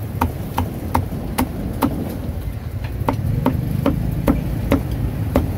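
Cleaver chopping roasted meat on a wooden chopping block: sharp chops about two to three a second, a short pause near the middle, then chopping again. A steady low rumble runs underneath.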